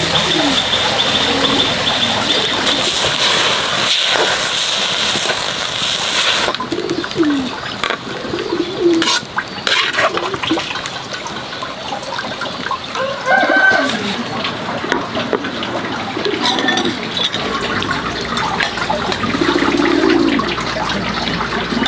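Running, splashing water with short low bird calls now and then, like cooing; a steady high hiss cuts off abruptly about six and a half seconds in.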